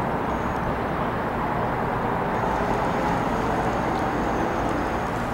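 A steady, even rumble of distant engine noise.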